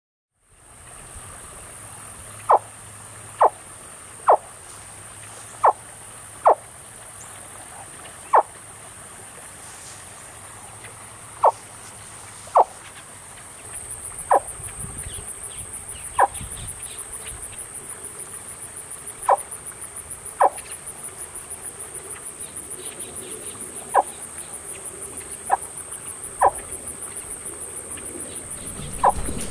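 Insects buzzing steadily at a high pitch, the buzz turning into a fast, even pulsing about halfway through. Over it come about fifteen short, sharp chirps, repeated at irregular intervals.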